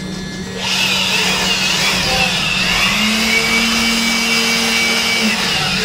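CNC wood carving machine cutting: a steady low hum, joined about half a second in by a loud high hissing whine from the spindle and bit working the wood, its pitch wavering as the cut goes on.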